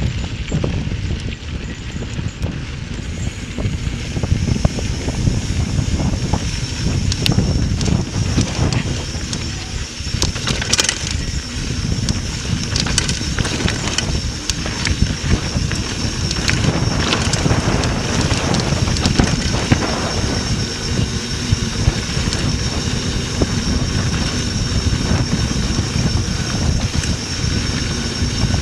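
Mountain bike rolling fast down a dirt trail: steady wind buffeting the microphone over the rumble of knobby tyres on dirt, with scattered clicks and rattles from bumps. A thin, steady high whine joins about four seconds in.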